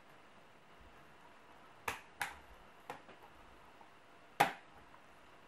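Four sharp clicks, the last about four and a half seconds in the loudest: the replacement keyboard of an Acer TravelMate TimelineX 8172TM laptop snapping into its retaining flaps as it is pressed down into the case.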